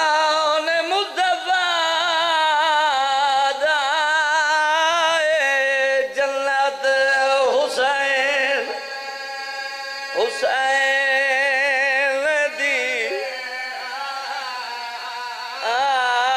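A man singing a melodic, wavering recitation into a microphone, holding long notes with a strong vibrato, in several phrases with short breaks between them.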